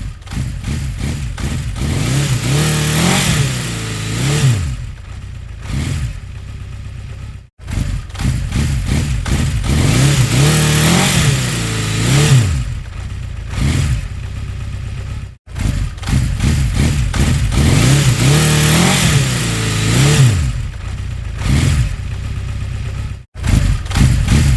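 Motorcycle engine idling and being revved a couple of times, the revs climbing and falling back each time. The same recording plays three times, each separated by a short cut to silence.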